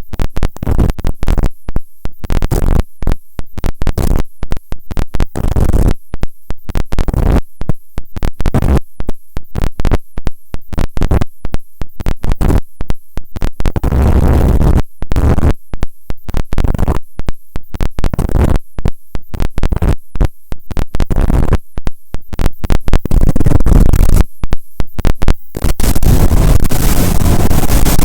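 Loud rushing noise broken up by many abrupt cuts to silence, several a second, growing louder near the end.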